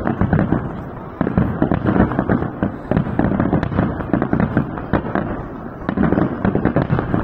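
Fireworks display: aerial shells bursting one after another in a near-continuous run of booms. The bursts thin out briefly about a second in, then come thick again.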